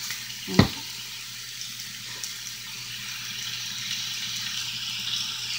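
Pork chunks sizzling in a hot cast-iron skillet, a steady hiss that builds slightly, with one sharp knock about half a second in.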